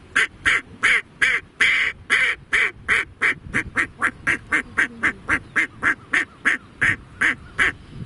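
A man imitating a duck by mouth: a fast run of about two dozen short quacks, quickening in the middle and slowing again toward the end.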